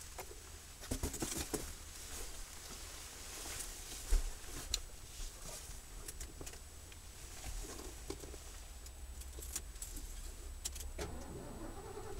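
Keys jingling and light clicks over a faint low rumble. About eleven seconds in, the starter begins cranking the Ford van's 351 Windsor V8 into life.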